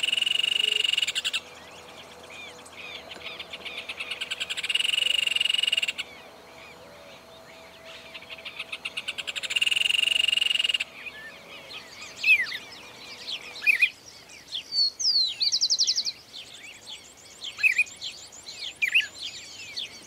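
A loud, fast-pulsed trill three times in the first half, swelling in loudness on the later two, then many short thin bird chirps and whistles for the rest.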